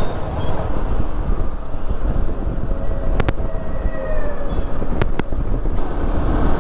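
Riding noise on a KTM 390 Adventure motorcycle: wind rushing on the microphone over the steady drone of the engine and road. A few sharp clicks about three and five seconds in.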